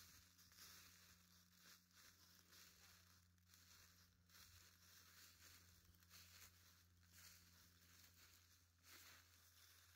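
Faint, irregular crunching and rustling of footsteps through dry fallen leaves, over a low steady hum.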